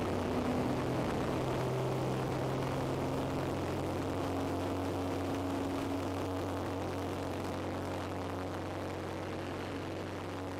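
Light propeller aircraft running alongside another, heard from a wing-mounted camera: a steady engine and propeller drone with a rush of air. The engine note shifts slightly about two seconds in and then holds steady.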